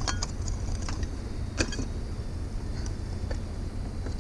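Metal light fixture being forced by hand: a few sharp clinks and creaks of its metal frame, the clearest near the start and about a second and a half in, over a steady low rumble.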